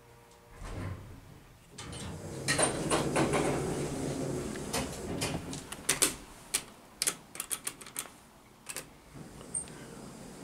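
ThyssenKrupp Impulse hydraulic elevator arriving at a floor: a steady hum stops about half a second in with a low thump as the car settles. About two seconds in, the stainless steel cab doors slide open, followed by a run of sharp clicks as the car call buttons are pressed, and the doors begin to close near the end.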